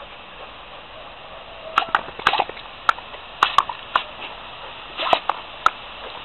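Labrador retriever snapping its jaws at the spray from a garden hose nozzle. A run of sharp clacks and short splashes starts about two seconds in, over the steady hiss of the spray.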